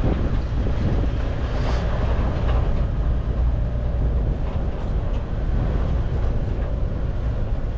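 Steady low rumble of a running engine in a moving vehicle.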